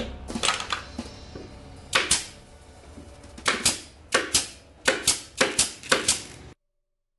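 Pneumatic nail gun firing nails through a radiata pine panel into the edges of the bookcase carcass: a rapid series of sharp shots in quick clusters of two or three, cutting off suddenly near the end.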